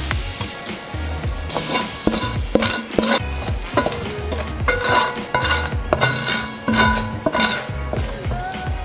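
A spatula stirring and scraping minced meat sizzling in a nonstick pan, then scraping it out into a pot of boiling water, with clicks and scrapes of the utensil on the pan. Background music with a steady beat plays throughout.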